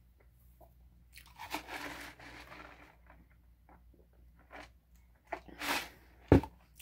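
Close-up handling sounds of a large foam drink cup being lifted and drunk from, a stretch of rustling and crunching, then a sharp knock near the end.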